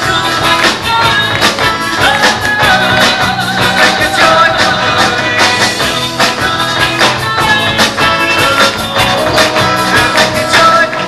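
Rock band playing: electric guitar over a drum kit, with a steady beat of drum hits.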